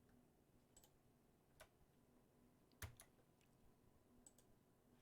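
A few faint, scattered clicks of a computer mouse, with two in quick succession near the middle.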